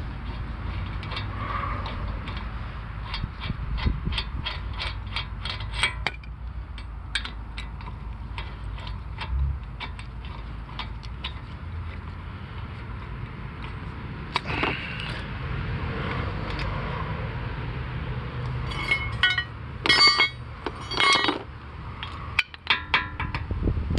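Repeated sharp clicking, about three to four clicks a second for a few seconds and then sparser, typical of a worn front CV axle joint on a Honda Civic as the wheels are steered, over a low steady rumble. Near the end come a few louder ringing metallic clinks.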